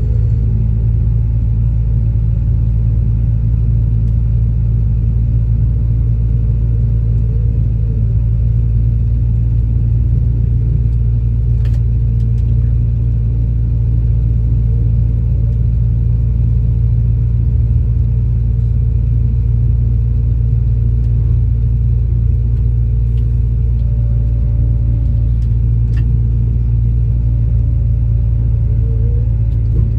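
Engine and hydraulic drive of a large wire-rope winch running steadily: a deep, even drone with a faint higher whine that shifts slightly in pitch now and then, and a few light clicks.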